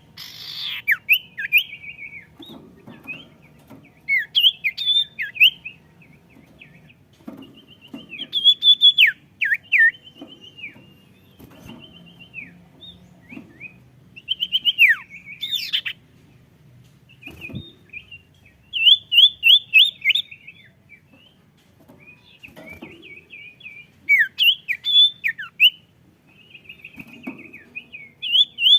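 A sirtu songbird singing actively, in full form. It repeats short phrases of rapid chirps, trills and down-slurred whistled notes, with brief pauses between them.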